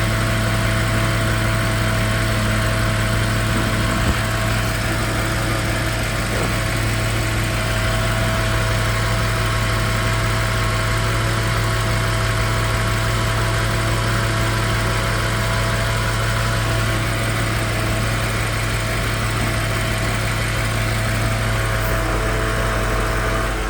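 BMW X6 M Competition's twin-turbo V8 idling steadily at full operating temperature, a constant hum with a few faint steady tones above it. This is the odd noise the owner hears only once the engine reaches about 210 degrees and not when cold; he is unsure whether it is normal.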